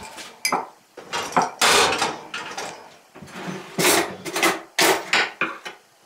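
A kitchen cutlery drawer pulled open and the cutlery in it clattering as it is rummaged through and a knife is taken out: a string of irregular clattering bursts, loudest about one and a half seconds in and again around four to five seconds in.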